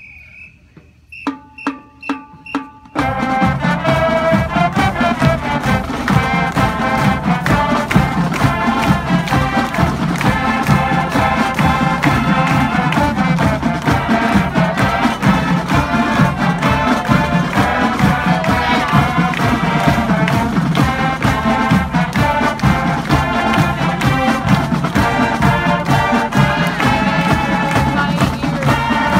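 High school marching band playing its school fight song, brass carrying the tune over a steady drum beat. It starts loud about three seconds in, after a brief quiet with a few short clicks.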